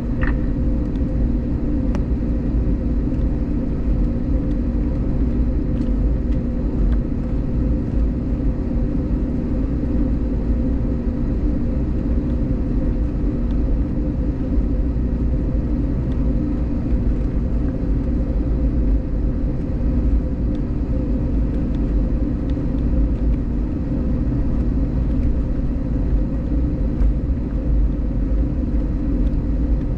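Steady low drone inside the passenger cabin of an Airbus A321neo, with a few faint steady hum tones over it.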